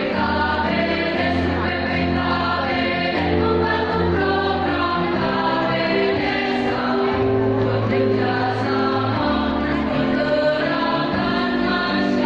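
A choir singing in harmony, holding long chords that change about every second, over sustained low bass notes.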